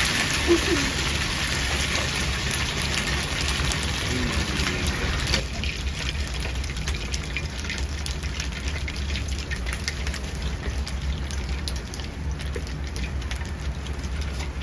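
Pan of fried xiaolongbao sizzling with a loud, steady hiss that drops off suddenly about five seconds in and then goes on more quietly. A steady low hum runs underneath.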